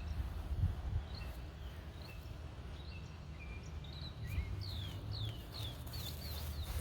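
Birds chirping: scattered short chirps, then a quick run of downward-sliding calls from about four and a half seconds in, over a steady low rumble.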